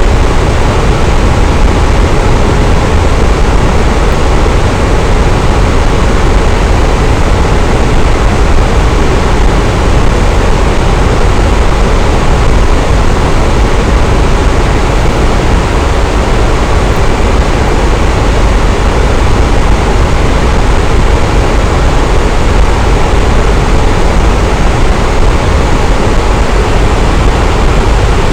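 Fan running steadily: an even, unbroken rush of air noise, heaviest in the low range.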